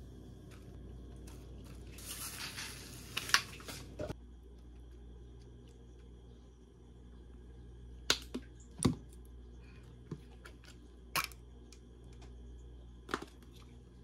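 Sweet chili sauce and mustard squeezed from squeeze bottles onto a salad: a sputtering spurt lasting about two seconds, then several separate sharp clicks.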